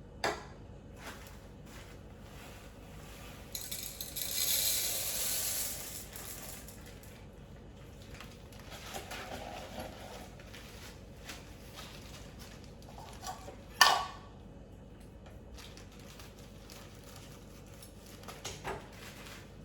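Activated carbon pellets poured into a plastic filter canister, a rattling pour of about two seconds. Scattered clicks of plastic parts being handled follow, and a sharp knock near the end is the loudest sound.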